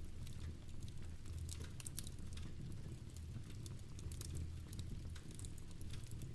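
Fireplace fire crackling with rain pattering, many small irregular crackles and pops over a low steady rumble.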